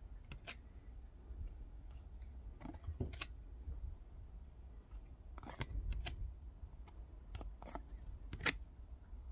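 Glossy Topps baseball cards being slid off the front of a handheld stack and tucked behind it, one after another: irregular short sliding flicks and light snaps of card stock, coming in small clusters every couple of seconds.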